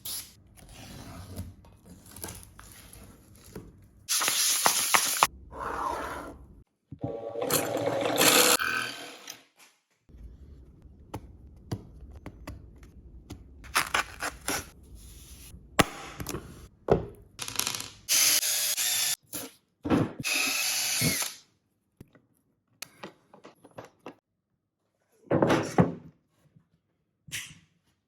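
A small power tool running in several short bursts of one to three seconds each, with clicks and knocks of handling in between.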